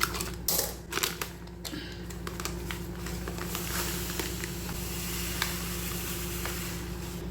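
Plastic packet of wheat rava crinkling with sharp clicks as it is handled and opened, then a steady grainy rustle of the dry rava being poured out.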